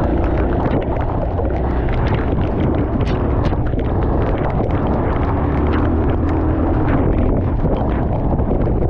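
Single-cylinder engine of a Kawasaki KLX230 dual-sport motorcycle running steadily while riding, its pitch wavering slightly, with wind buffeting the microphone and scattered short knocks.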